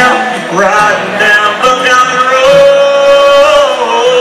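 Live country song: a man singing over acoustic guitar and band, holding one long note a little past the middle.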